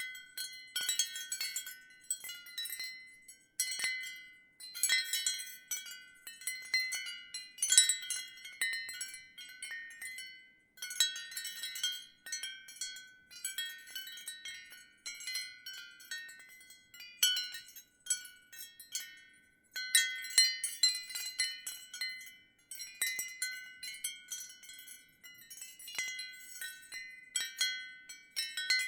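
Ceramic wind chimes clinking in the wind: many quick, irregular strikes with short, bright ringing tones, coming in flurries broken by brief lulls.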